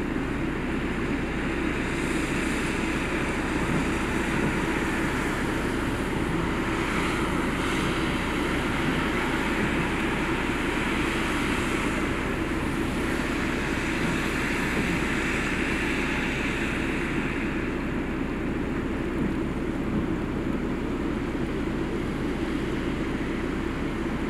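Steady rushing background noise with a low hum, swelling gently a few times and never breaking.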